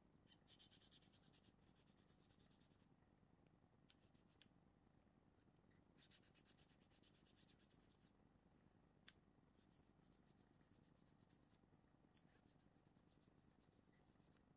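Faint, fast rasping or scratching strokes by hand on a small workpiece, coming in several spells of a second or two each. A few single sharp ticks fall between the spells.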